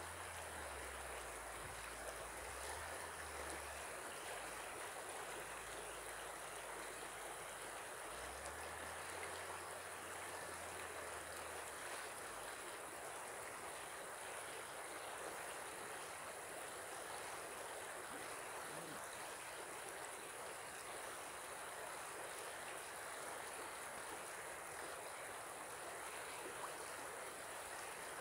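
Shallow river flowing: a steady, even rush of water, with a faint low rumble during the first dozen seconds.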